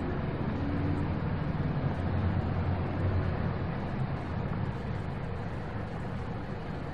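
Car driving slowly, a steady low rumble of engine and tyres that swells slightly a couple of seconds in, then eases off.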